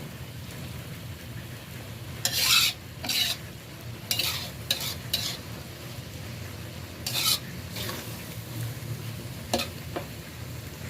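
Beef pieces sizzling in a wok over a high flame, with a spatula scraping and stirring them in irregular strokes while the meat browns before water is added.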